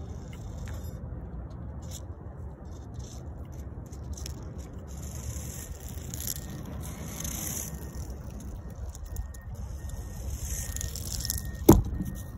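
Small electric motor and tyres of a DIY 1:43-scale all-metal RC car whirring as the car drives past on a hard court surface, swelling around the middle and again near the end, over a steady low rumble. A single sharp knock just before the end.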